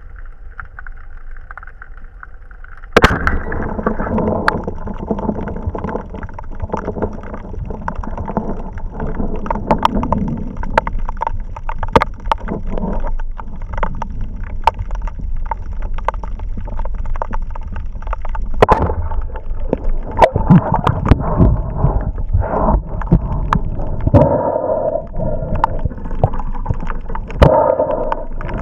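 Underwater sound picked up by a camera in a waterproof housing while a spearfisher swims with a speargun: a muffled rush of water with scattered knocks and clicks. It gets suddenly louder about three seconds in.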